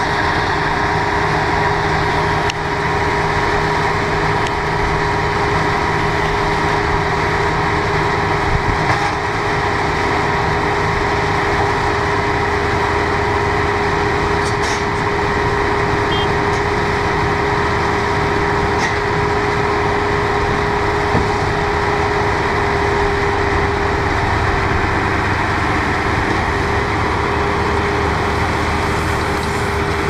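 Tractor engine running steadily, pulling a working Feraboli Trotter Omnia round baler-wrapper combination, with a steady mechanical whine held over the engine's rumble.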